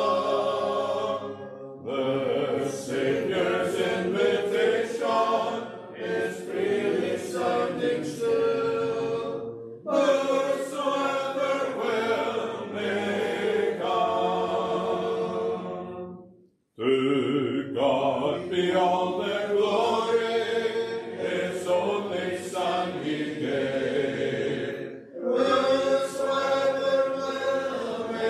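A congregation singing a hymn together without instruments, line after line, with brief pauses for breath between the lines.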